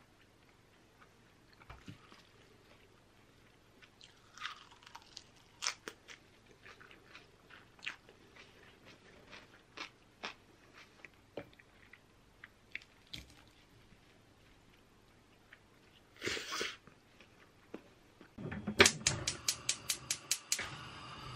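Close-up eating sounds of konjac noodles with salad greens: chewing and crunching, with light clicks of a fork against a ceramic bowl. Near the end comes a rapid, even ticking of about five clicks a second over a rising hiss, a gas stove's igniter clicking and the burner lighting under a pan.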